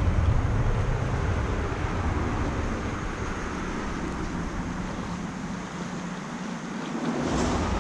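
Steady low rumble and rush of wind and handling on the microphone while a channel catfish is reeled in. The rumble eases for a couple of seconds, then a short splash comes near the end as the fish breaks the surface.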